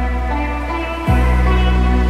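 Background music: held bass and chord tones, changing to a new chord about a second in.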